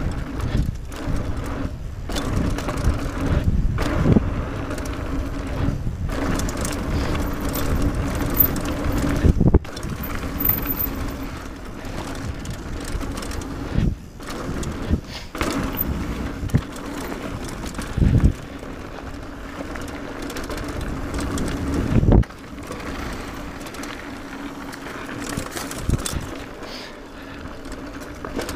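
Mountain bike rolling fast down a dirt trail: steady tyre rumble, with the bike rattling and knocking sharply over bumps and roots many times.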